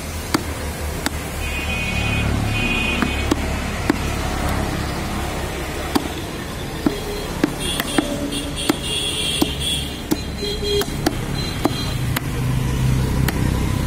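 Meat cleavers chopping beef on wooden stump chopping blocks: sharp chops about once a second over a steady low traffic rumble.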